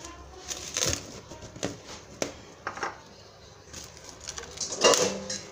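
Plastic cling film crinkling and rustling as it is handled and pulled from its roll, in a series of short crackles, the loudest near the end.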